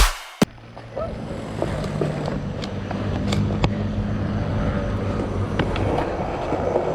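Skateboard wheels rolling on skatepark concrete, a steady rough rumble with a sharp click about half a second in and scattered faint clicks over the joints and cracks.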